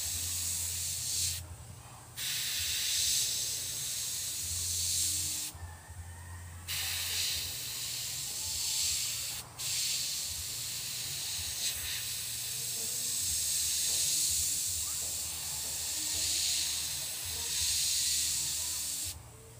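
Airbrush hissing steadily as compressed air sprays paint, stopping briefly about a second and a half in, around six seconds, for a moment near ten seconds, and again at the very end as the trigger is let off. A low steady hum runs underneath.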